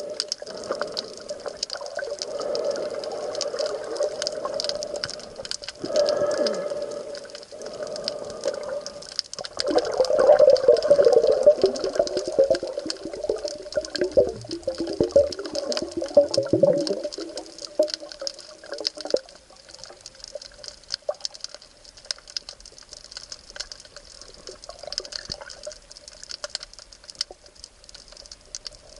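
Water sound as picked up by a camera at sea: constant fine crackling and a steady wash, with louder bubbling and gurgling from about a third of the way in that fades out past the middle.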